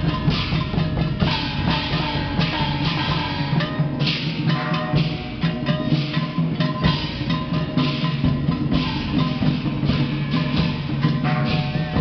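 Temple procession percussion ensemble: a large barrel drum and hand-held gongs beaten in a continuous rhythm, with gong tones ringing and sliding in pitch between the strikes.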